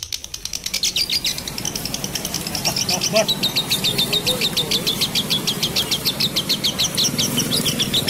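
Caged lovebirds chattering: a fast, unbroken run of high, shrill chirps, about six or seven a second, which grows louder and busier about three seconds in.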